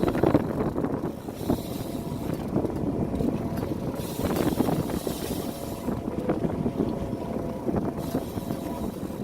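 Wind buffeting the microphone aboard a fishing boat, rising and falling in gusts, with a faint steady hum underneath.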